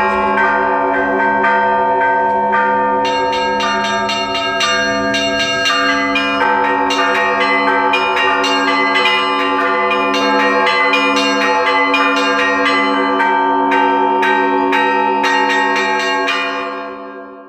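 A set of Russian church bells cast by the LITEX foundry is being rung by hand. Small bells strike rapidly over a steady repeating stroke on a middle bell, while the larger bells keep ringing. The sound fades out near the end.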